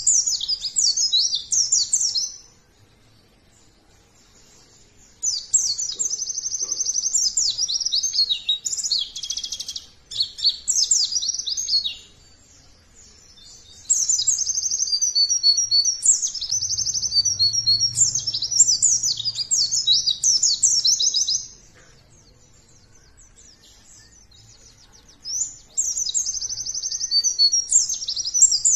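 White-eye (pleci) singing: rapid, high-pitched twittering song in long runs of several seconds, broken by pauses of a few seconds.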